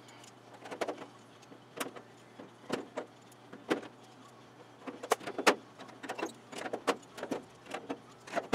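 Pneumatic drill in short, quick bursts, drilling out cleco holes in thin aluminium wing skin to 1/8 inch (#30 bit), about one or two bursts a second, sped up fourfold, over a steady low hum.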